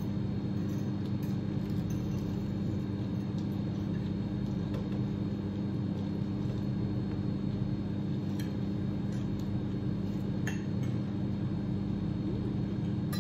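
Cutlery clinking now and then against plates while eating, a few light clicks, over a steady low hum.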